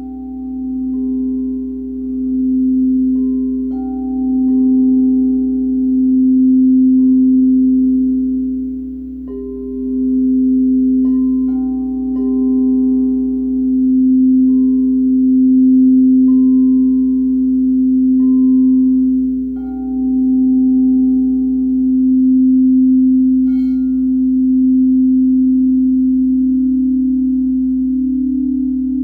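Crystal singing bowls ringing: one low bowl held sounding by a mallet circling its rim, its tone swelling and fading in slow waves, while higher-pitched bowls are struck one after another and ring on over it.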